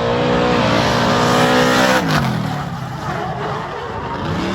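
Car engine revving hard: its pitch climbs for about two seconds, drops sharply, then rises again near the end.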